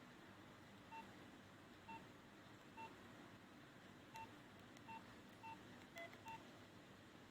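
Faint keypad tones of a Nokia 2600 classic as its keys are pressed: short single beeps, eight of them at uneven intervals. The one about six seconds in is lower in pitch.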